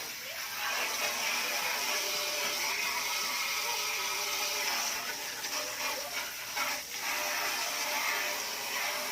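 Water spraying onto a window-type air conditioner's parts to rinse out dirt, a steady spray noise with small breaks.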